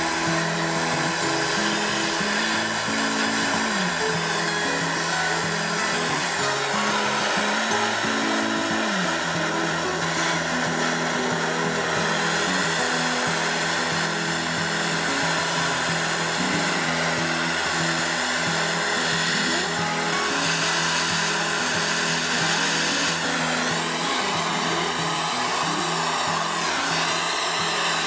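Steady hiss of a handheld gas blowtorch flame heating the neck and handle of a carbon steel wok, with background music over it.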